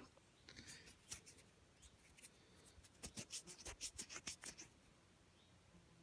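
Faint short scratching and rubbing strokes, a quick run of them between about three and four and a half seconds in: fingers handling and rubbing a small dug-up metal fitting.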